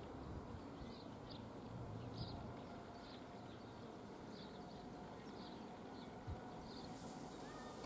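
A bird chirping over and over, short high notes about one or two a second, faint over a low steady background rumble.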